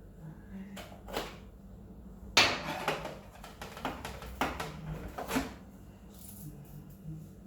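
Bottles and jars being handled while a fridge is emptied and wiped: a series of knocks and clatters, the loudest about two and a half seconds in.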